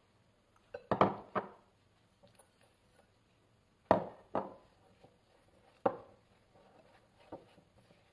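A white ceramic bowl and a spatula knocking against a glass mixing bowl as butter and sugar are tipped into it: a pair of sharp knocks about a second in, another pair about four seconds in, a single knock near six seconds and a lighter one a little later.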